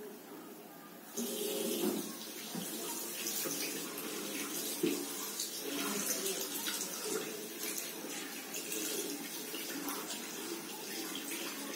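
Water running from a bathroom sink tap, starting about a second in, as soapy hands are rinsed under the stream and the water splashes into the basin.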